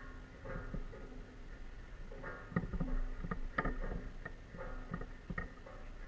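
Soft background music of plucked guitar notes.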